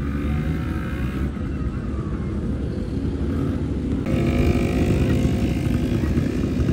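Several quad bikes (ATVs) running, a steady low engine drone that jumps louder about four seconds in.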